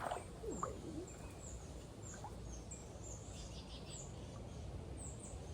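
Small birds chirping: a run of short, high, downslurred chirps, two or three a second, with a quick trill a little past halfway, over a steady low rumble.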